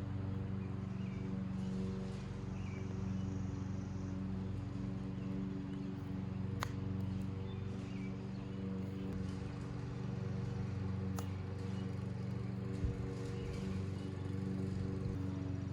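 A small engine running steadily at one even pitch. Two sharp clicks come about a third and two thirds of the way in, and a low thump comes near the end.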